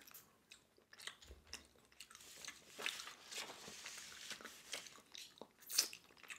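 A person chewing a mouthful of steamed clam: soft, irregular mouth clicks and chewing noises, with one louder click near the end.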